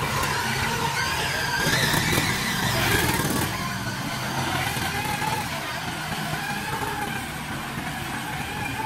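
Small engine of a bamboo train (norry) rail cart running steadily as the cart rolls along the track, with a constant low hum and rattling.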